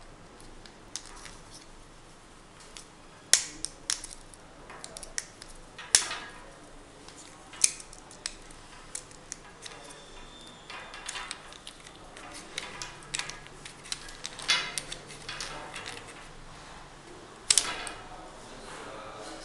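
Plastic clicks, knocks and rubbing from handling a chest expander: resistance-tube ends being pushed into the slots of its plastic handle. The knocks come irregularly, several sharp ones standing out, the loudest near the end.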